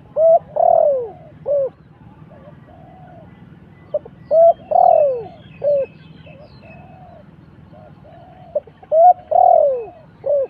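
A dove cooing: the same phrase three times, about every four and a half seconds, each a short coo, a loud long coo that falls in pitch, then a short closing coo. Faint high chirps of other birds sound between the phrases.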